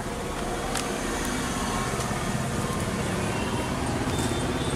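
Steady background noise of road traffic, with a single sharp click about three quarters of a second in.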